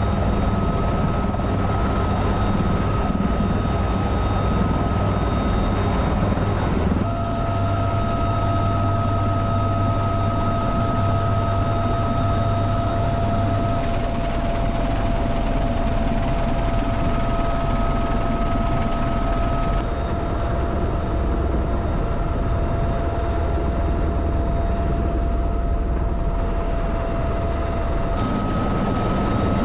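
UH-1Y Venom helicopter heard from inside the open-doored cabin: continuous rotor and turbine noise with a steady high whine. The tone of the noise shifts abruptly several times.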